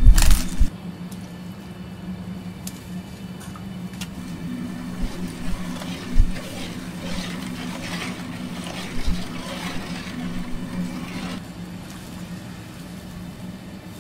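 Water sloshing and splashing in a large stockpot of onions and radish as a gloved hand stirs through it, from about five seconds in until about eleven seconds, over a steady low hum. A few low knocks at the very start.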